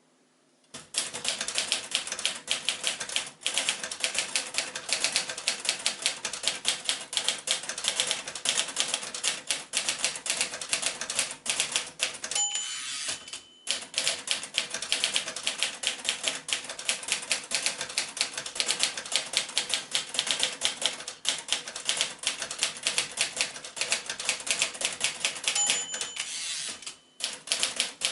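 1939 Royal Aristocrat manual typewriter typing at a fast, steady pace, its type bars striking the platen in rapid clicks starting about a second in. Twice a short bell rings at the end of a line, followed by a brief pause for the carriage return before the typing picks up again.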